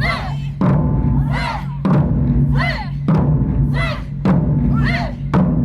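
Taiko drums struck in a slow, steady rhythm, a heavy stroke about every 1.2 seconds with the deep drum ringing on between strokes. A voice calls out between the strokes.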